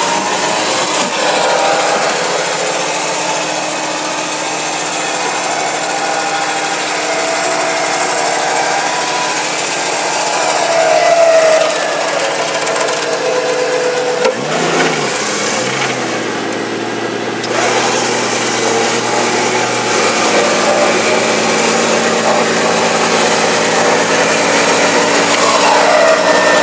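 Electric winch on a Jeep Cherokee's front bumper reeling in under heavy load, its motor whining and wavering up and down in pitch as it drags the stuck vehicle through deep mud.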